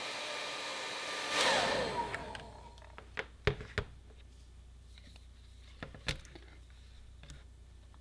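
Hand-held hair dryer blowing hot air on the ends of PVC pipe to soften them. It is switched off about a second and a half in, and its motor whine falls as it winds down. A few light knocks follow as the dryer is set on the table and the pipes are handled.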